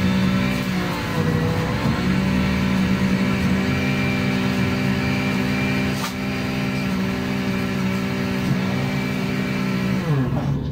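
A motor vehicle engine running steadily. Its pitch drops about a second in and glides down again near the end.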